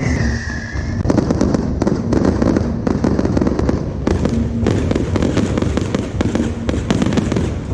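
Fireworks barrage: a dense, rapid crackle of many bangs going off in quick succession from about a second in, after a short falling whistle at the start.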